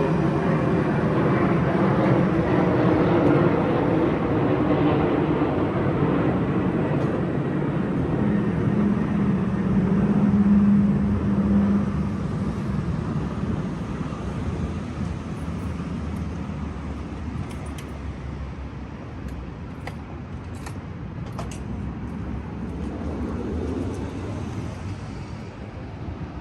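An airplane passing overhead: engine noise with slowly falling pitch that fades away through the second half.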